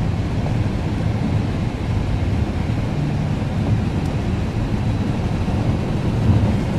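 Strong wind buffeting the microphone: a steady low rumble with a fainter hiss above it.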